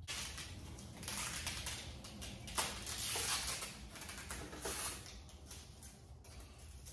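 Handling noise from a mountain bike's handlebar and cables being moved about in a work stand: soft rustling with a few light clicks and knocks, one about two and a half seconds in and another near the five-second mark.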